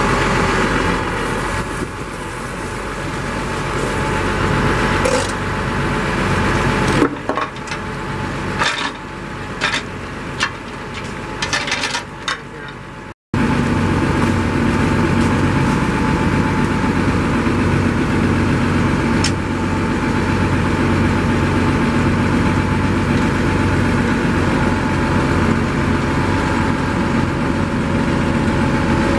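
International Harvester 350 Utility tractor engine idling steadily. About seven seconds in it drops quieter with a few sharp clicks, then after a break about thirteen seconds in it runs on at a steady idle, a little louder.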